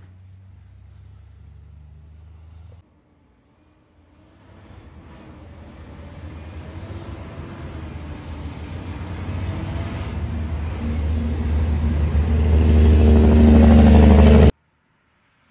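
Diesel engine of a cabover Kenworth semi-truck hauling timber, driving past with a low, steady engine note that grows steadily louder as it nears and then cuts off suddenly about a second before the end. Before it, for the first few seconds, another truck engine passes more quietly.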